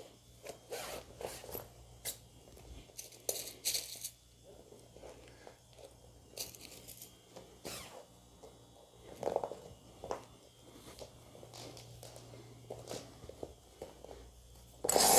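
Stiff, transparent Turkish net fabric rustling and crinkling in short, faint scrapes as hands smooth it flat over a taffeta circle skirt and pin it down, with a louder rustle near the end.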